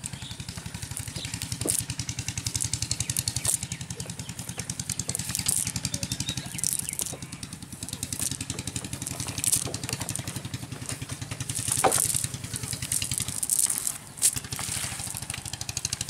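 A small engine running steadily with a rapid, even pulse, under the rustle and crackle of a wet cast net being handled and small fish being dropped into a plastic sack.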